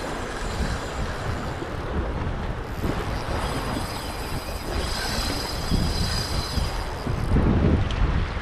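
Wind buffeting the microphone in uneven gusts, a rough low rumble, with the sea washing behind it.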